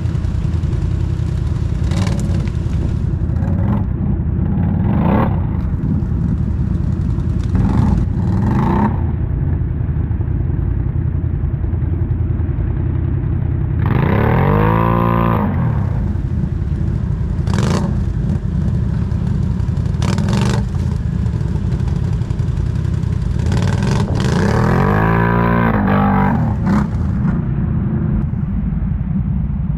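ATV engine running under load on an off-road trail, the revs climbing and dropping back twice, once midway and once near the end, with a few sharp knocks and clatters from the machine over rough ground.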